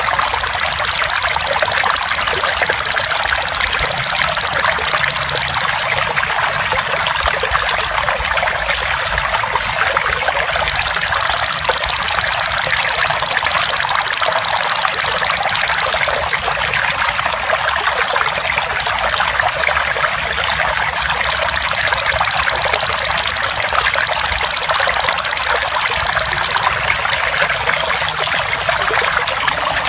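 Belalang emas insect buzzing in a high, even, rapid trill, in three long bursts of about five seconds each, over steadily trickling water. The buzz is the loudest sound.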